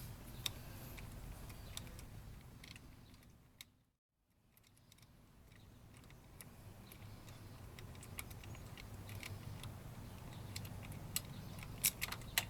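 Scattered light metallic clicks and taps of hand tools and a bolt being worked loose and handled, over a low steady hum; the sound cuts to silence about four seconds in and fades back, with a few sharper clicks near the end.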